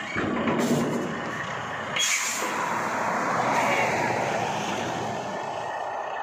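Heavy trucks on the move during a tow, one pulling the other: steady engine and road noise, with a short sharp hiss about two seconds in.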